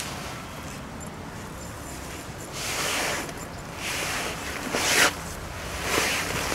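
Zipper on a Night Cat hammock tent's mosquito-net door being pulled shut from inside in four short rasping strokes, the loudest about five seconds in.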